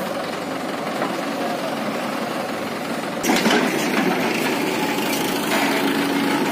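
Diesel engines of a JCB 3DX backhoe loader and a Mahindra 575 DI tractor running steadily. About three seconds in, the sound turns louder and rougher as the backhoe's engine works its digging arm and bucket in the soil close by.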